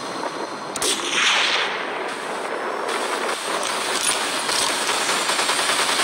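A single bolt-action rifle shot about a second in, its report trailing off into a rush of noise, over a steady noise.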